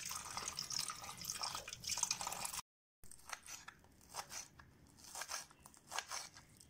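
Water splashing as onion leaves are rinsed by hand; then, after an abrupt cut, a knife chopping the green onion leaves, short crisp chops about three a second.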